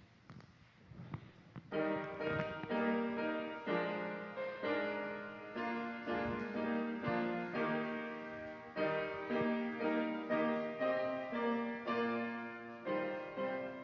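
Grand piano starts playing about two seconds in, a slow, continuous run of chords after a moment of quiet room sound.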